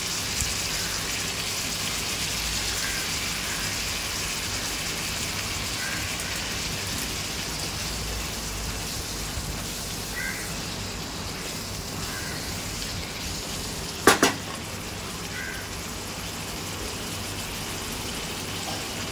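Prawns and mixed vegetables sizzling steadily as they fry in an oiled pan, stirred with a wooden spatula. A sharp double knock comes about fourteen seconds in.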